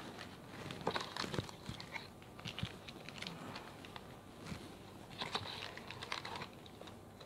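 Plastic accessory bags crinkling and rustling as they are handled, with small plastic mounts and the cardboard box giving irregular light clicks and knocks.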